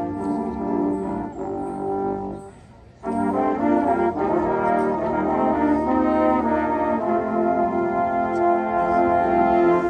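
Marching band's brass playing sustained chords. The music drops away briefly about two and a half seconds in, then the full band comes back in loud just after the three-second mark.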